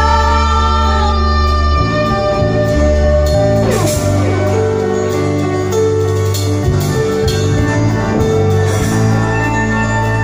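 Live rock band playing through a PA: electric guitars, bass and drums, with a falling pitch slide about four seconds in.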